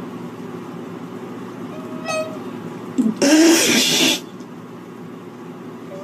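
Domestic cat in a bathtub of water crying out: a short meow about two seconds in, then a loud, harsh, hissing yowl lasting about a second, over a steady low hum. The cat is unhappy at being in the bath.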